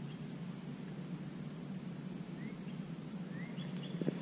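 Steady high-pitched drone of insects, with a few faint short chirps over it. A small splash in the water comes near the end.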